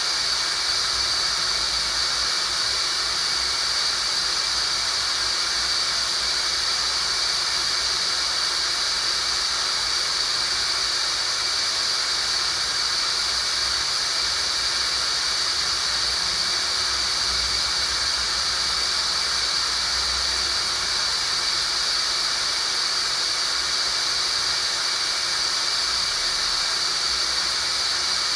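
Synthetic tinnitus-therapy sound: a steady high-pitched hiss, strongest in one narrow high band like a ringing tone buried in noise, unchanging throughout.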